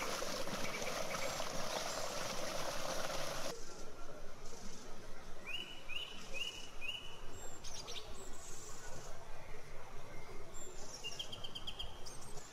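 Water rushing along a stone channel, stopping abruptly about three and a half seconds in. Then small birds chirping: four quick rising chirps in a row, more calls, and a quick run of notes near the end.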